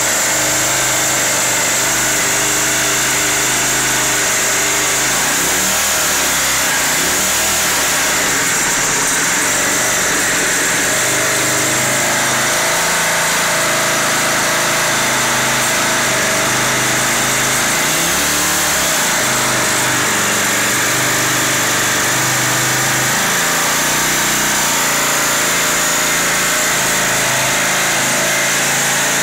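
A 5¾ hp Briggs & Stratton four-stroke lawnmower engine, converted into a homemade outboard motor, running steadily and loudly close up. Its pitch shifts slightly a couple of times.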